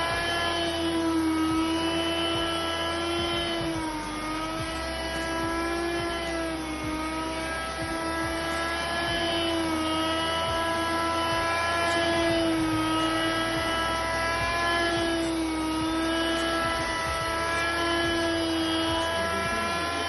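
Kärcher PCL 4 patio cleaner's 600 W electric motor running with its rotating brushes: a steady whine whose pitch sags slightly and recovers every few seconds.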